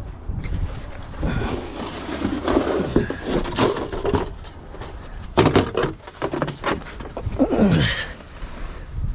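Irregular knocks and taps of a hammer working on car parts. About seven and a half seconds in, a falling whine-like cry.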